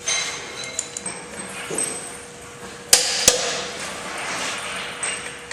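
Click-type torque wrench tightening a semi truck's wheel lug nuts: two sharp clicks less than half a second apart about three seconds in, the sign that the set torque has been reached. Light metallic clinks of the wrench and socket come before them.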